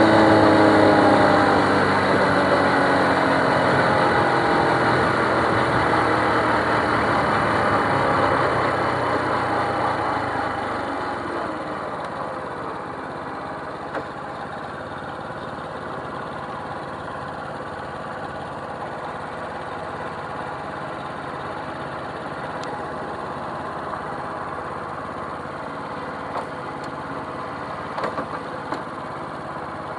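Small motorcycle engine heard from the bike itself, with wind noise, its pitch falling as it slows over the first ten seconds or so. It then settles to a steady idle while stopped, with a few light clicks near the end.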